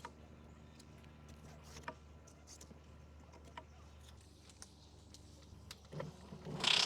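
Black & Decker MM875 electric mower motor running with a faint hum and scattered light ticks, typical of a nut lightly striking one of the fan blades. The hum fades about four seconds in, and a short, louder rush of noise comes near the end.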